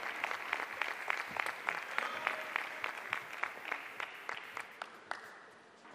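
Arena crowd applauding between points, with a rhythmic clap of about three beats a second, fading out near the end.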